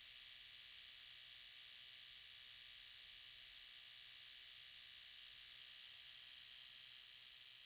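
Steady faint high-pitched hiss with no distinct events: the recording's background noise.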